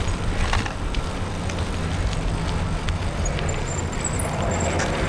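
Bicycle rolling on wet pavement: a steady rumble of tyres and road, with wind on the microphone and a few small clicks and rattles.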